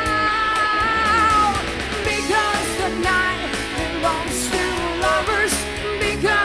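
A rock band playing live: a woman sings lead over electric guitar and drums, holding a long wavering note in the first second or so before the melody moves on.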